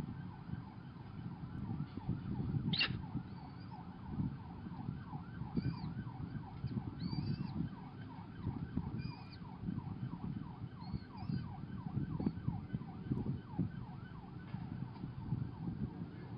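Peregrine falcon chicks begging: a fast run of short cheeps with a few higher squeals in between, which fades out after about twelve seconds. A steady low rumble of background noise sits beneath.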